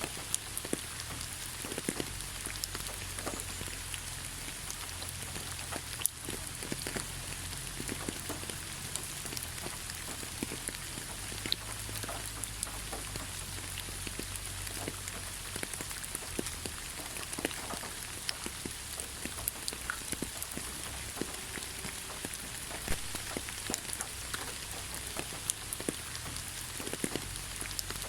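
Steady rain falling on a surface: a dense, even hiss with many scattered louder drops ticking.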